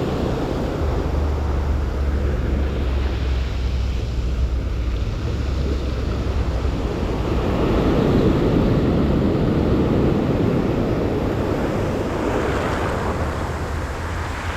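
Surf breaking and washing up the beach in swells, with wind buffeting the microphone as a low rumble.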